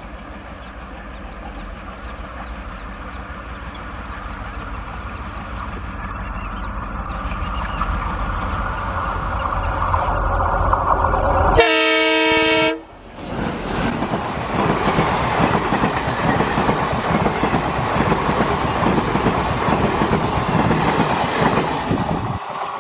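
Indian Railways diesel locomotive hauling a passenger train, its engine growing steadily louder as it approaches. About halfway through comes a single horn blast of about a second. This is followed by the loud rumble and wheel clatter of a train running past.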